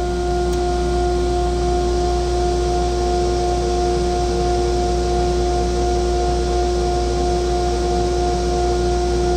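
Vacuum blowers for the CNC router's dust collector and vacuum hold-down table running steadily: an even rushing noise with a constant whine and a low hum beneath.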